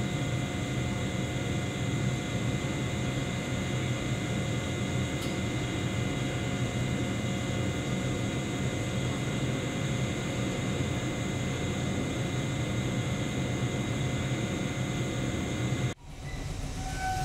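A Tobu 6050 series electric train standing at a station platform, its onboard equipment humming steadily with a few constant tones over a low rumble. About 16 s in the sound cuts off abruptly and gives way to a quieter, different background.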